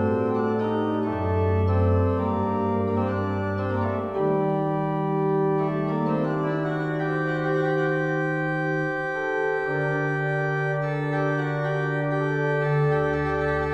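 The three-manual Alexander Schuke pipe organ (1940/43) playing a Tierce en taille, a slow French Baroque movement with a solo line on a tierce registration over held chords. Sustained pipe tones, with the bass note changing about four seconds in, again near ten seconds, and once more near the end.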